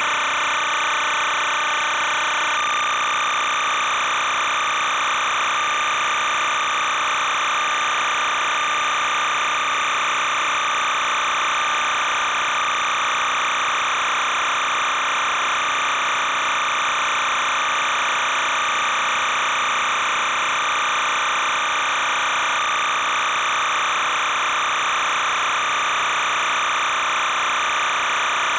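A steady, unchanging electronic buzz made of several high tones.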